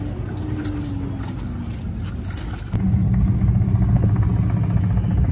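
Distant offshore racing powerboat engine winding down, its pitch falling slowly over about two seconds, heard over wind and water noise: the boat has suffered an engine failure. After a cut about two and a half seconds in, a louder steady low engine drone takes over.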